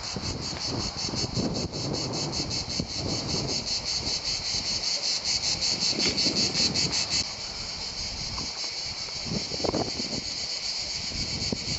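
Cicadas buzzing in a fast pulsing rhythm, about four pulses a second. About seven seconds in the pulsing stops abruptly and a steady buzz carries on.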